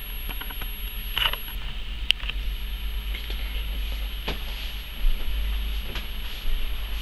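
Low rumble of wind buffeting the microphone, growing louder about five seconds in, over a steady high hiss, with a few sharp clicks.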